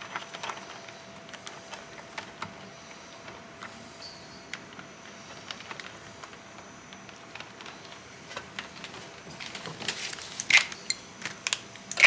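Scattered light clicks and metallic clinks of hand tools and suspension parts being handled, with a cluster of louder, sharper clinks near the end.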